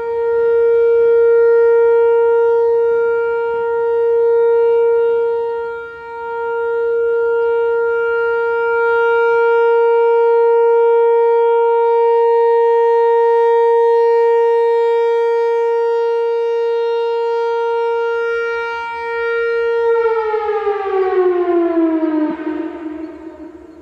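Whelen Vortex outdoor warning siren sounding a steady tone for its monthly test, swelling and dipping in loudness now and then. About 20 seconds in, the pitch falls as the siren winds down, and it fades out near the end.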